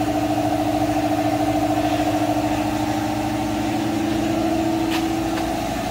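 Shop air compressor running, a steady mechanical hum with a fast pulsing texture; one of its tones drops away near the end, and a single faint click comes about five seconds in.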